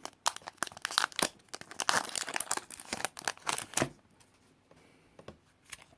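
Foil trading-card booster pack wrapper being torn open and crinkled: a quick run of crackles and rips for about four seconds, then only faint handling.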